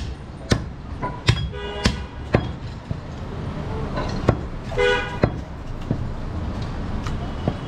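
Heavy butcher's knife chopping goat meat on a wooden log block: sharp chops at irregular intervals. A vehicle horn honks twice over it, about a second and a half in and again about five seconds in.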